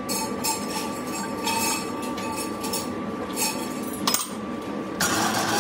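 Metallic clinks and taps of a steel spanner against the steel clamping fixture holding a pressed cylinder half, with a sharper knock about four seconds in, over a steady machine hum. Near the end the machine noise gets louder.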